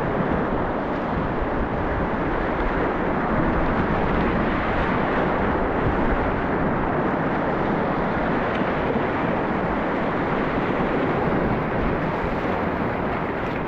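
Whitewater rapids rushing steadily and loudly around a kayak.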